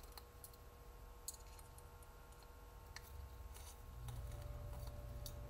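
Faint, scattered clicks of a small screwdriver working tiny screws out of a plastic scale-model engine, over a steady low hum that rises slightly about four seconds in.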